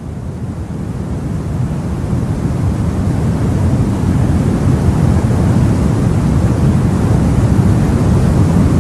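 Steady low rumble of sea and wind, fading in over the first few seconds.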